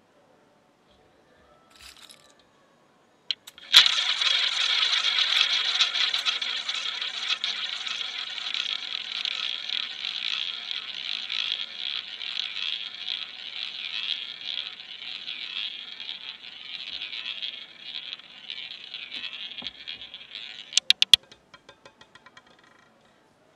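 Roulette ball launched into the spinning wheel with a click, then rolling round the ball track with a steady whirring rattle that slowly fades. Near the end it drops and clatters in a few quick bounces and small ticks as it settles into a pocket.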